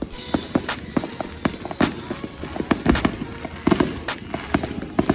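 Many fireworks and firecrackers going off all around, with sharp bangs and pops several times a second at irregular intervals over a constant crackle.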